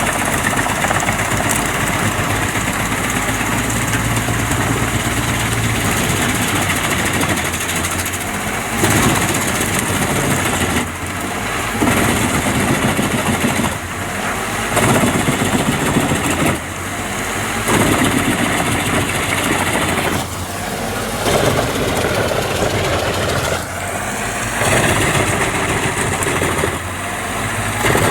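Engine of a forestry wood-processing machine running hard and continuously, its sound swelling and dropping every two to three seconds through the second half.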